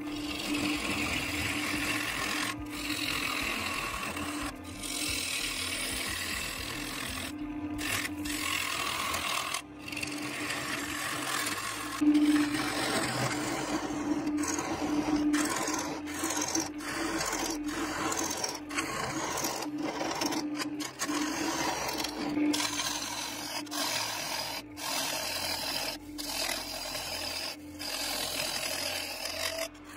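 A bowl gouge cutting into wood spinning on a lathe while the inside of a bowl is hollowed: a steady, rough shaving noise over a steady motor hum. The sound drops out and resumes abruptly many times.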